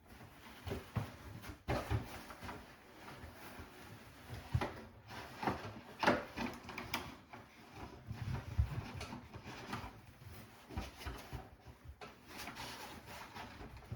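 Parts of a headless horseman animatronic being handled: irregular knocks, clicks and rattles as an arm is pushed and worked to fit onto the body.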